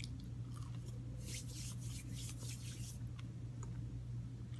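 Closed-mouth chewing of a bite of stuffed pastry pocket, with a cluster of crackly mouth and crust sounds in the middle. A steady low hum runs underneath.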